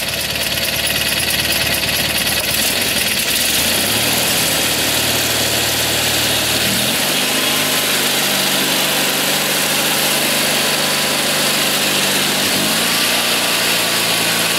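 Simplicity Sunstar garden tractor's 20 hp Kohler Magnum twin-cylinder engine running steadily, its speed stepping up about 4 seconds in and again about 7 seconds in, then dipping and recovering briefly near the end.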